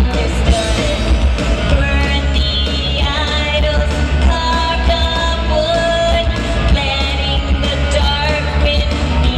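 Rock band playing a song with a lead singer, loud and steady with heavy bass throughout.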